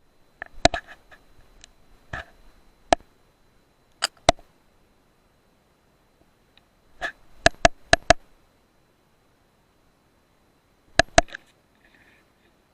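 A series of sharp, short clicks and snaps from an FX Panthera .177 air rifle, coming singly and in quick clusters, including a rapid run of about five a little past the middle and a pair near the end.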